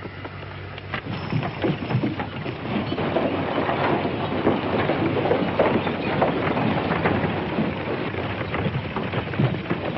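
Horses galloping on a dirt street: a dense, steady clatter of many hoofbeats that swells up about a second in.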